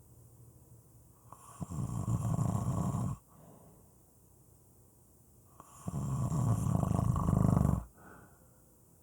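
A person snoring: two long, loud, rasping snores about four seconds apart, with quieter breathing between them.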